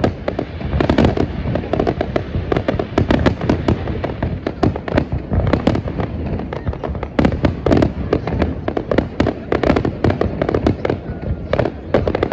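Fireworks display: a continuous barrage of overlapping bangs, several a second, with no gaps.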